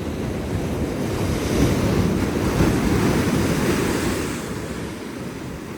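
Ocean surf washing in, building over a couple of seconds and then easing off, with wind buffeting the microphone.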